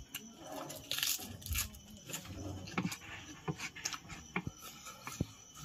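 Close-miked eating: a person chewing and smacking a mouthful of spicy instant ramen noodles, with irregular wet clicks and a few short slurping smears.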